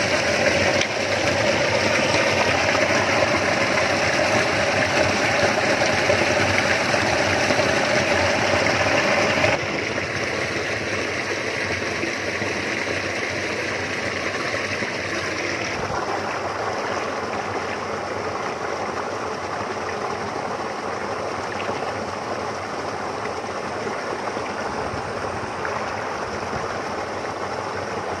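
Steady rushing of flowing water, at first water pouring through a mesh net. The rushing drops abruptly in level about a third of the way in and changes tone again a little past halfway, but stays a continuous noise throughout.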